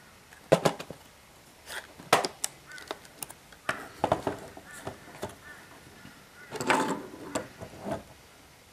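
Plastic instrument-cluster housing knocking and clattering against a wooden tabletop as it is handled, turned over and set down, in a handful of separate knocks and scrapes.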